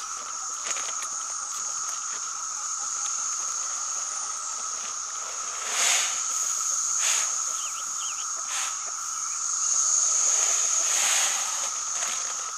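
Insects buzzing steadily at two pitches, one high and one lower, with several short rustles from a bag of chicken feed being handled; the loudest comes about six seconds in.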